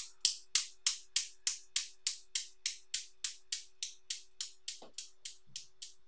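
Steel balls of a Newton's cradle clacking against each other in a steady rhythm, about three clacks a second, slowly growing fainter as the swing dies down.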